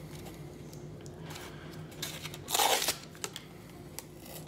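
Cardboard baking soda box being worked open by hand: scraping and tearing at the flap, with one louder rip a little past halfway and a click just after.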